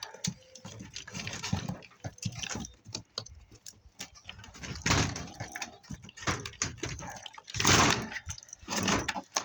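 Hands-on dismantling noise from the underside of a dishwasher: irregular clicks, rattles and scrapes as wires and parts are worked loose. There is a louder scraping rush about five seconds in and a stronger one near the end.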